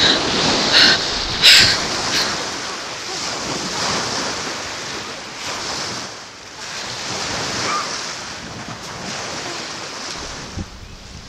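Small waves washing up on a sandy lakeshore, a rushing, surging wash that swells and fades, with wind on the microphone. Two sharper splashes come within the first two seconds, and it eases off in the second half.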